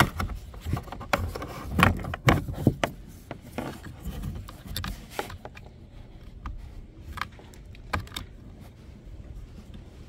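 Plastic clicks, taps and scraping as a wiring-harness connector is worked onto the pins of a Dodge Nitro driver's-door window switch. The clicks come thick in the first few seconds, then more sparsely.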